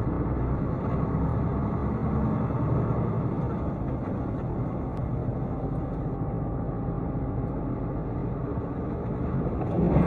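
Steady road and engine noise of a vehicle being driven, heard from inside the cabin, getting a little louder near the end.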